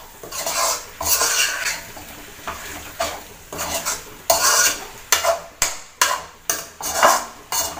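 Spatula scraping and stirring chicken in thick masala around a metal kadai, with the frying masala sizzling. The strokes are long at first and come quicker, about two a second, in the second half.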